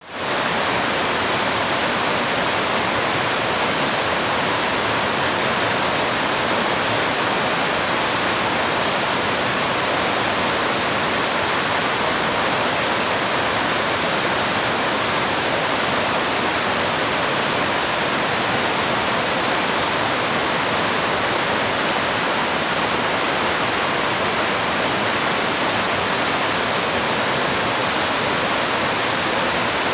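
Spring-fed river water rushing over a low rocky cascade: a steady, loud white-water rush that fades in right at the start.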